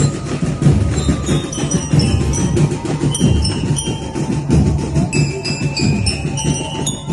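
Band music with a busy, steady percussion rhythm under a high, bell-like melody of short notes stepping up and down.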